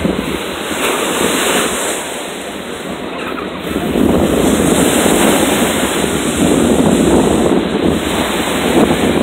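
Small sea waves breaking and washing in the shallow surf, with wind buffeting the microphone; louder from about four seconds in.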